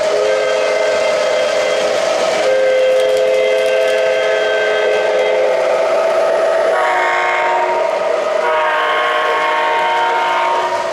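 O-gauge model locomotive's electronic sound system sounding its diesel horn in long, held blasts. The chord shifts a few times while the train runs past.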